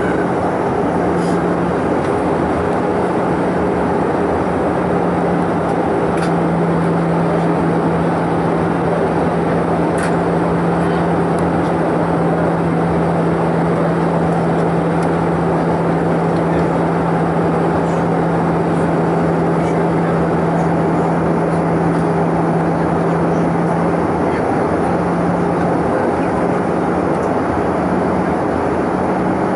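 Jet airliner cabin noise from a seat over the wing: steady engine and airflow rush with a low hum, the engines throttled back in descent. The hum drops slightly in pitch about six seconds in and rises back near the end.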